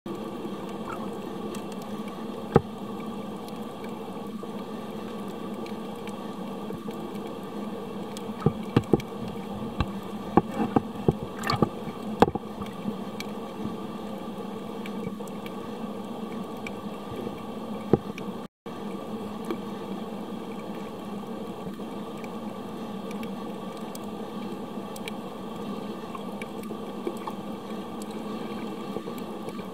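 Muffled underwater sound heard through a camera's waterproof housing: a steady hum and hiss of the sea, with scattered sharp clicks and knocks, most of them bunched between about 8 and 12 seconds in. The sound cuts out for an instant about two-thirds of the way through.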